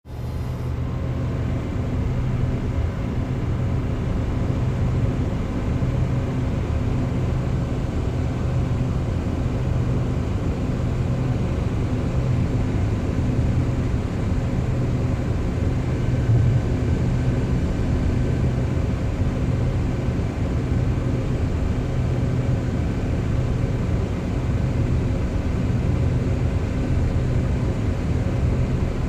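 Low machine hum: a steady deep drone with faint steady tones above it, even in level throughout.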